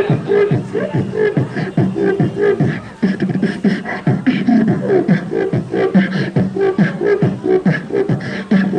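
A boy beatboxing: a fast, unbroken run of rhythmic mouth sounds, short pitched strokes that drop in pitch, several a second.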